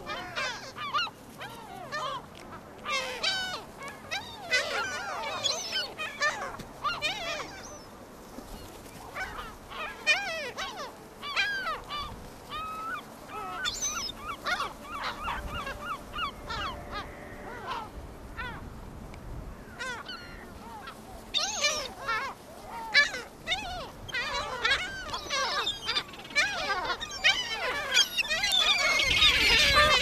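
A flock of herring gulls calling over and over, with many overlapping squawking and laughing calls. Near the end comes a rushing flutter of wingbeats as gulls swoop in and land close by.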